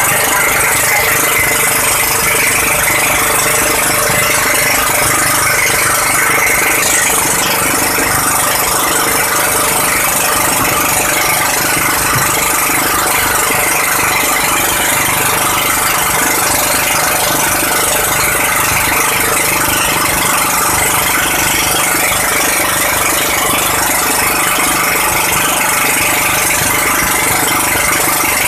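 A motor running steadily and loudly, with no change in pitch or level.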